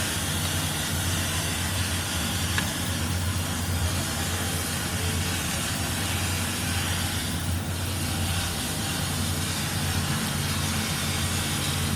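A machine running steadily, with a constant low hum and a hiss over it.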